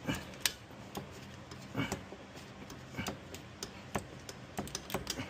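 Irregular metallic clicks and taps of tools and wheel hardware being handled while a rear wheel is refitted, with a few sharper knocks about once a second.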